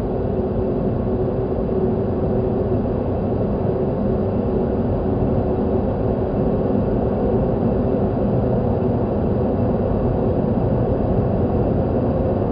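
Howling wind: a steady, low rushing with faint held moaning tones running through it.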